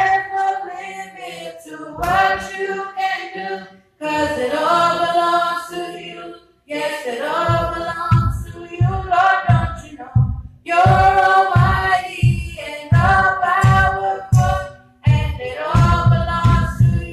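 Voices singing a gospel song in Haitian Creole, unaccompanied at first; about halfway through, the band's low beat comes back in at about two pulses a second under the singing.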